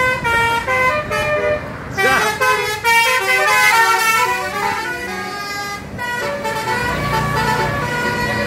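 A tour bus's multi-tone 'telolet' musical horn plays a quick melody of shifting notes in several runs. The bus engine runs underneath and gets louder near the end.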